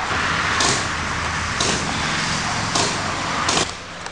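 Four paintball marker shots, sharp pops roughly a second apart, over a steady hiss that drops away near the end.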